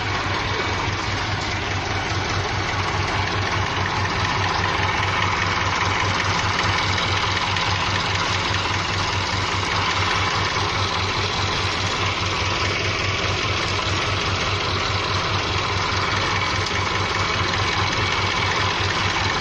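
Farm tractor engine running steadily, with a fast, even beat.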